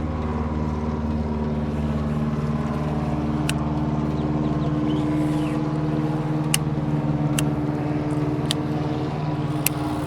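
Bass boat's outboard motor running at a steady speed, an even engine drone, with a few sharp ticks in the second half.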